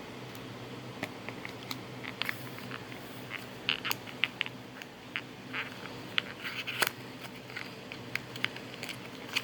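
Small nail polish boxes and bottles being handled and opened by hand: scattered light clicks, scrapes and crinkles, with one sharper click near the end.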